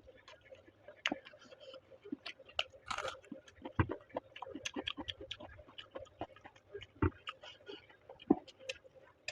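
Close-miked eating: a person chewing chicken masala and chapati with frequent wet mouth clicks and small crunches, and a longer, louder crunching bite about three seconds in.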